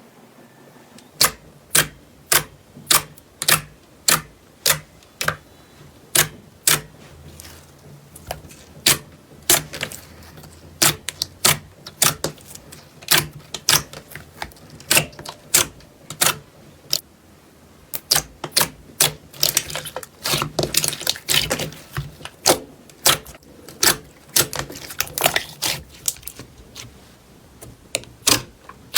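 Slime being pressed and worked by hand, giving a long run of sharp, crisp clicking pops about one or two a second, some in quick pairs.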